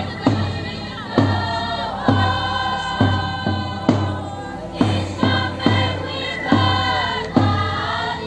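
A group of voices singing a Christmas hymn together, over a steady beat struck a little under once a second.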